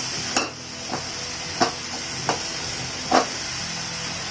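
Ridge gourd pieces and onion masala sizzling in an aluminium pot, a steady hiss, with about five sharp clicks or knocks at uneven intervals.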